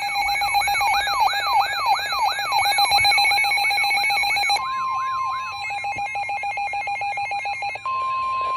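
Electronic emergency alert tones sounding ahead of a severe thunderstorm warning broadcast: layered alarm tones with rapid falling sweeps, about three a second. About halfway in they give way to quick pulsing beeps and then a single long steady alert tone.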